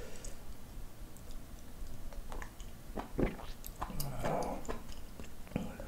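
Close-miked eating sounds: a sip of spicy ramyeon broth from a spoon, chewing and mouth noises, and chopsticks clicking against the ceramic bowl, with a few louder wet bursts about three and four seconds in.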